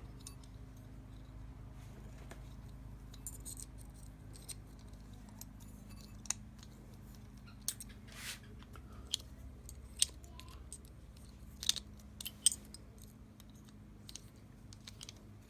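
Scattered light metallic clicks and taps of small metal tool parts being handled while the centre pilot drill is taken out of a hole saw arbor, over a faint steady low hum.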